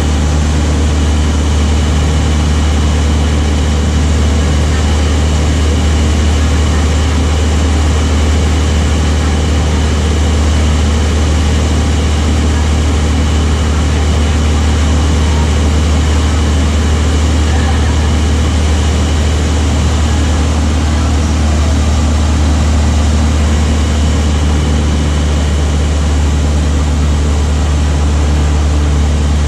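Light single-engine piston aeroplane's engine and propeller heard from inside the cockpit: a loud, steady drone with a deep hum that does not change in pitch or level.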